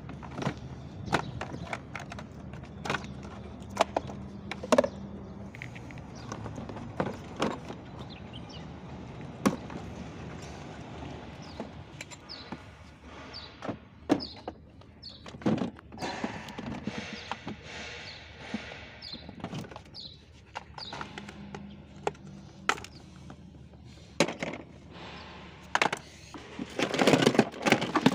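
Irregular plastic clicks, knocks and thunks from the wiring connectors and moulded plastic parts of a children's electric ride-on car being pulled apart and handled, with a denser, louder clatter near the end.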